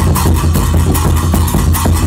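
A folk percussion ensemble playing a fast, steady beat: a large barrel drum beaten with sticks gives a heavy low pulse, with handheld cymbals clashing in rhythm over it.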